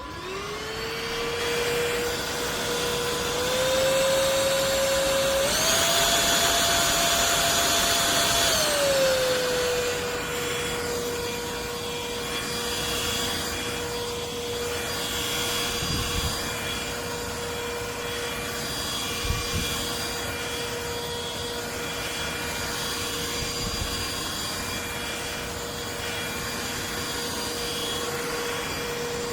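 Cordless stick vacuum cleaner's motor switching on and spinning up to a steady whine. Its pitch steps up twice, holds higher for about three seconds, then drops back to the first pitch and runs steadily, with a few soft bumps along the way.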